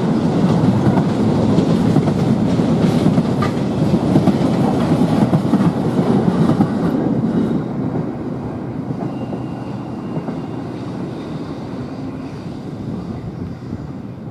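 Container freight train's wagons rolling past on the rails. About seven seconds in, the tail of the train clears, and the noise drops and fades into the distance.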